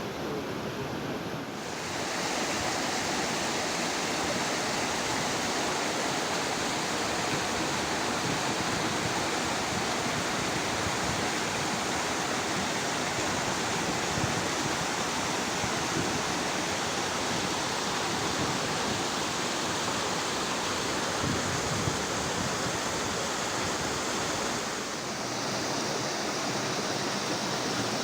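Steady, dense rush of falling or fast-flowing water, with no speech over it. It grows fuller and brighter about two seconds in and dips briefly near the end.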